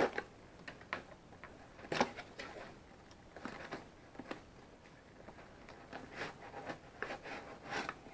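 A small cardboard product box being opened and handled on a workbench: scattered clicks, taps and brief rustles, the sharpest right at the start and about two seconds in.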